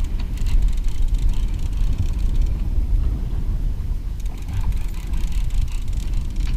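Wind rumbling heavily on an open-air camera microphone on a boat at sea, with an uneven splashing hiss of choppy water alongside.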